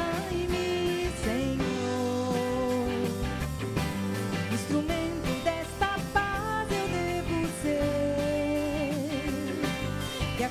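A woman singing a slow melody live, holding long notes and letting one waver with vibrato near the end, over acoustic guitar accompaniment.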